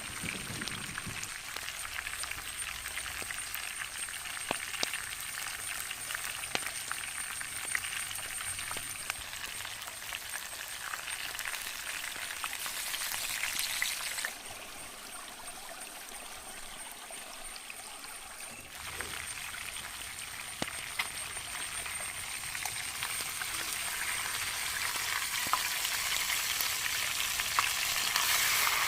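Chicken frying in hot oil, a steady sizzle with scattered crackles and pops; it drops in level for a few seconds midway, then rises again.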